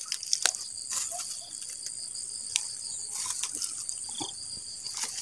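Insects chirring steadily at a high pitch, with scattered short clicks.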